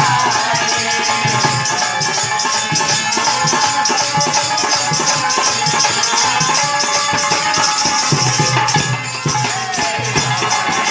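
Hari kirtan devotional music: hand percussion rattles in a fast, even rhythm over drum strokes and steady held tones.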